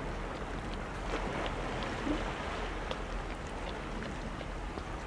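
Steady wash of the sea on a rocky reef shore, mixed with wind, with a few faint clicks.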